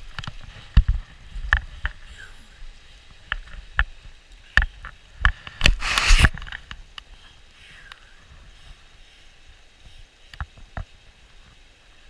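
Handling and wading noise in a shallow stream: scattered sharp knocks and clicks, and one loud rush of splashing or rubbing about six seconds in.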